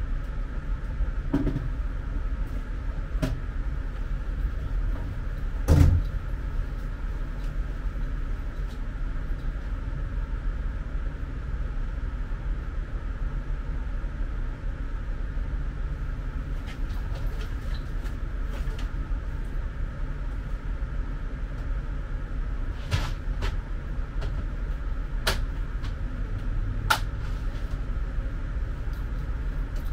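Steady low background hum with a few scattered knocks and clicks, the loudest a thump about six seconds in.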